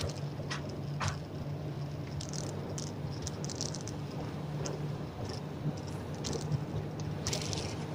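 Steady engine drone heard from inside a moving bus, with frequent short clicks and rattles from the body and fittings.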